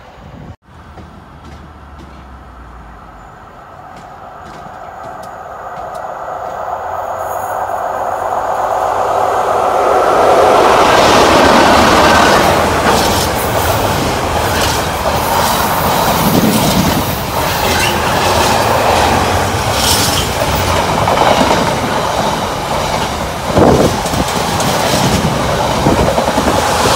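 Container freight train approaching and passing close by, growing louder over the first ten seconds, then a steady loud rumble of the wagons with repeated wheel clacks on the rails.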